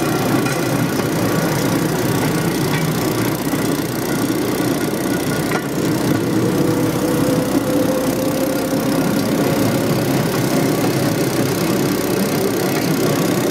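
Small petrol engine of a motorized rail draisine running steadily as it rolls along the track, with the wheels clattering over the rails.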